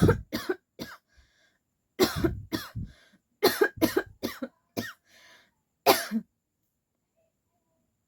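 A woman coughing in quick fits of several coughs each, then one last single cough about six seconds in. They are forced, put-on coughs for a coughing challenge.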